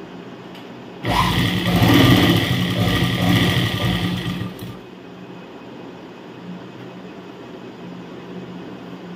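Sewing machine stitching through gathered fabric in one run of about three and a half seconds, starting about a second in and then stopping.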